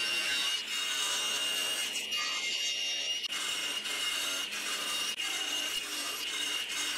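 Table saw running with a steady high whine, its blade cutting a row of facets around a wooden disc in repeated short passes.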